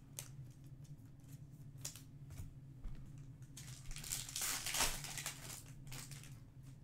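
Foil trading-card pack being torn open and crinkled by hand: a run of irregular crackling rips, loudest about four to five seconds in.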